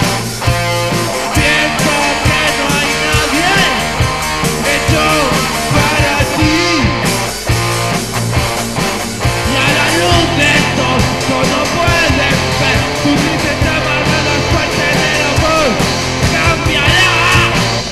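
Loud rock song played by a band, with electric guitar and a steady drum beat.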